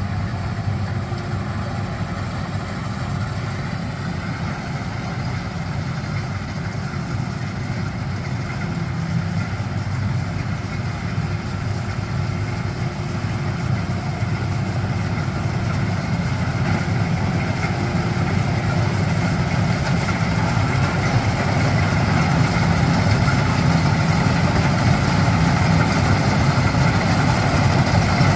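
Rice combine harvester running steadily in the field, its engine and threshing drone slowly growing louder. A thin, high tone comes and goes over the drone.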